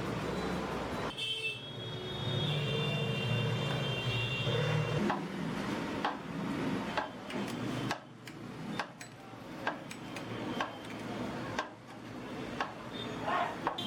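Busy street noise with vehicles. In the second half come many sharp, irregular clicks and knocks.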